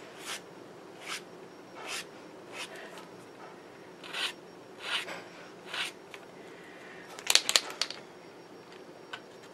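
Sharpie marker tip drawn across paper in short, quick strokes, roughly one a second, with a faster run of strokes about seven seconds in: whiskers being drawn.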